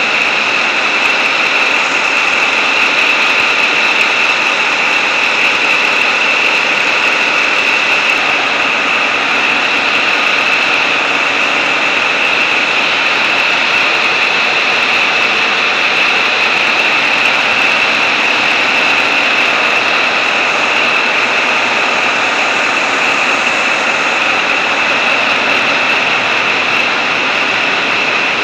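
Tugboat engine room with its main diesel engine, about 1,500 horsepower, running: a deafening, steady din that does not change.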